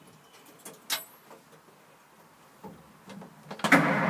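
A few light clicks in the quiet cab, then near the end the 1928 Graham Brothers truck's engine suddenly starts and keeps running.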